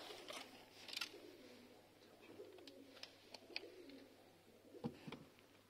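Faint, low, wavering cooing of a bird, with a few light clicks and a soft thump near the end.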